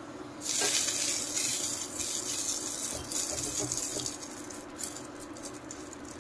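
Mustard oil sizzling as a brush spreads it over the inside of a hot clay pot, starting about half a second in and dying away after about four seconds.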